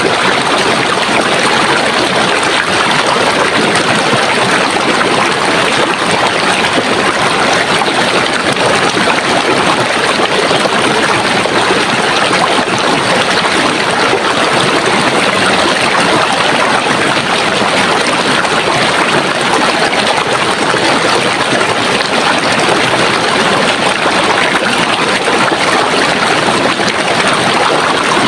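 Running water in a stream, a steady, even rushing and babbling.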